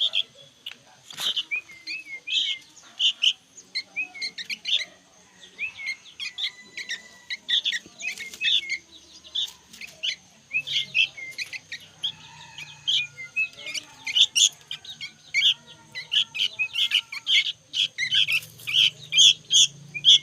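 Young sooty-headed bulbuls (kutilang) calling noisily, a rapid string of short chirps and whistles that grows busier near the end.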